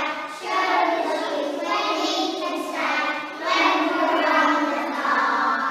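A group of young children singing together in two long phrases, with a short break between them.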